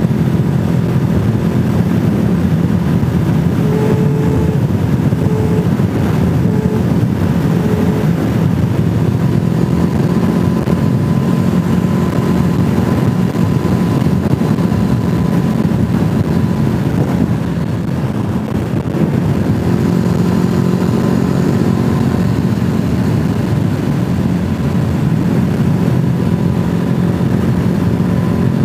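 Vehicle running steadily under way, a loud constant rumble heard through a helmet-mounted camera's microphone. Four short tones sound between about four and eight seconds in.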